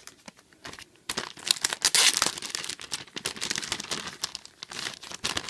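Thin clear plastic packaging bag crinkling and crackling as it is handled and pulled off a doll-clothing item on a plastic hanger. It starts about a second in, after a few light clicks, and goes on in quick, dense crackles.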